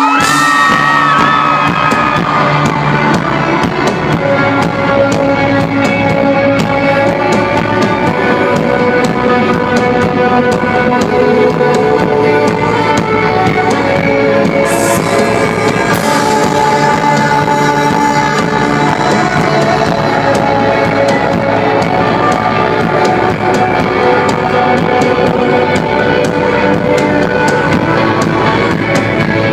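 Rock band playing live, a loud, steady instrumental stretch with no singing.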